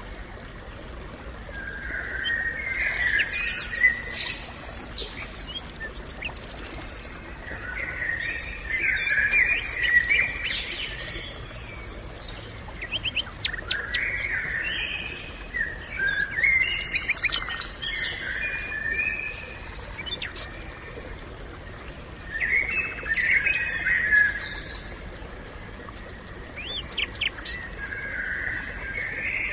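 Wild birds singing and chirping in a forest, in bursts of song every few seconds over a steady background hiss.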